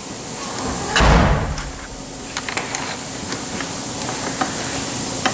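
Metal clutch parts being fitted by hand onto a motorcycle engine's mainshaft: a dull thump about a second in, then scattered light clicks, over a steady hiss.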